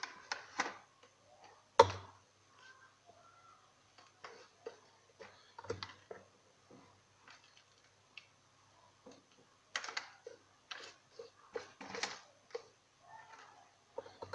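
Hard dry chickpeas being crushed by hand in a manual grinder: irregular clicks and cracks, with a sharp knock about two seconds in and another cluster of knocks near the end.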